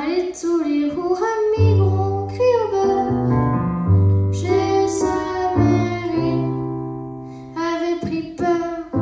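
A young girl singing a melody into a microphone, accompanied by a Roland digital piano playing sustained bass notes and chords.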